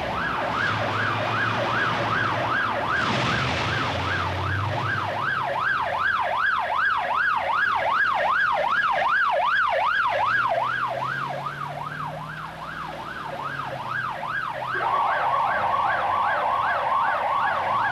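Turntable-ladder fire engine's siren yelping, sweeping up and down about three times a second, with the truck's engine running underneath and rising in pitch as it pulls away. About fifteen seconds in, a second, faster-wavering siren tone joins it.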